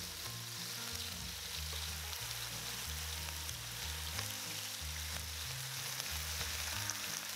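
Marinated beef short rib slices sizzling steadily in hot oil in a nonstick frying pan as they brown over medium-high heat. A low background music bass line plays underneath.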